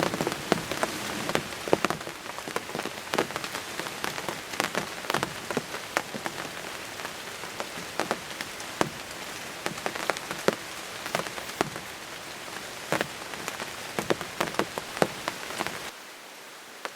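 Steady drizzle, with many separate raindrops ticking sharply on a surface close by. It stops suddenly near the end, leaving a faint hiss.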